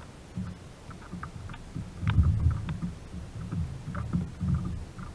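Low knocks and rumbles from the plastic hull of a Native Slayer Propel 13 fishing kayak as the angler standing on it shifts his weight, loudest about two seconds in and again around four seconds, with scattered light ticks over them.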